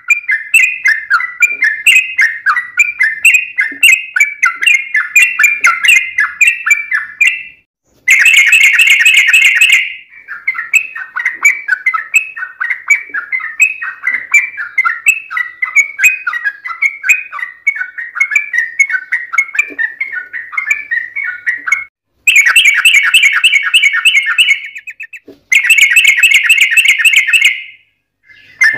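Yellow-vented bulbul (trucukan) song: fast, bubbly chattering phrases repeated without pause. Louder bursts of rapid, dense trilling come in about eight seconds in and again twice near the end, each set off by a brief silent break.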